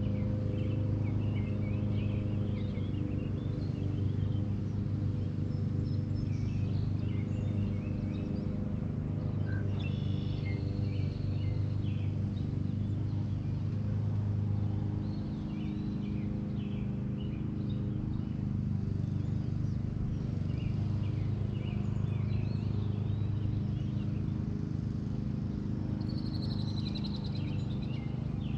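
Small birds chirping and calling on and off, over a steady low mechanical hum that is louder than the birds.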